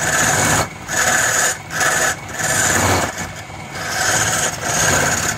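Hand-held turning chisel cutting a spinning wooden handle on a wood lathe. It scrapes in about six short bursts, each lasting under a second, as the tool is pressed to the wood and eased off, over the running lathe.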